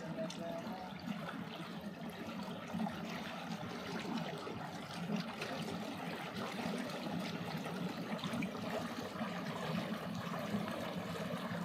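Water lapping and trickling: a steady, fluttering wash of water noise.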